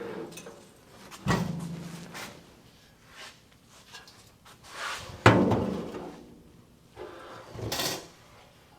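Steel Model A car door being turned over by hand: two heavy clunks with a short ringing, about a second and about five seconds in, with scraping and handling noise between and near the end.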